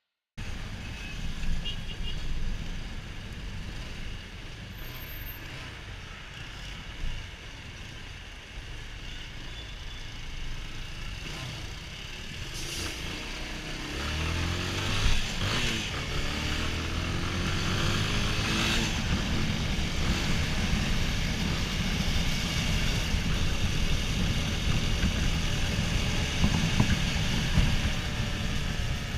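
Yamaha Fazer 250 motorcycle riding in traffic: the single-cylinder engine runs under way with wind rush on the microphone, its pitch rising and falling about halfway through as it speeds up and changes gear, and it gets louder toward the end.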